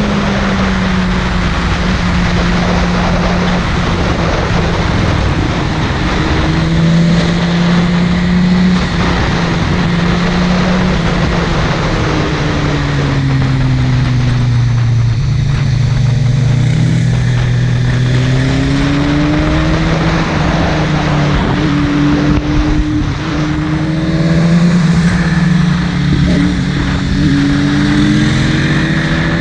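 Buell 1125CR's 1125 cc V-twin engine being ridden hard, its note repeatedly rising and falling with the throttle and gear changes, lowest in the middle stretch, over a steady rush of noise.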